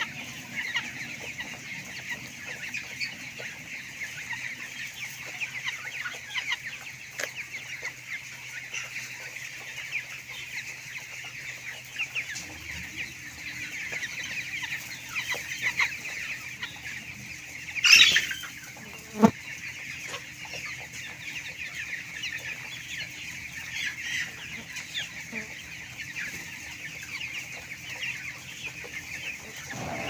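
A large flock of broiler chickens peeping and clucking continuously, a dense chatter of many overlapping calls, with one louder squawk just past the middle.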